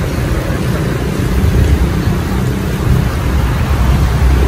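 Wind rumbling on the microphone with road noise while riding a bicycle, the low rumble getting heavier about a second and a half in.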